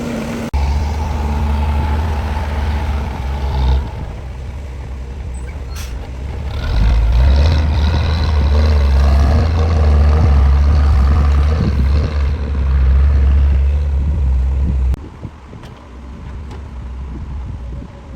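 Heavy diesel construction machinery running under load with a deep, steady rumble. It starts abruptly, swells about seven seconds in, and drops suddenly about fifteen seconds in.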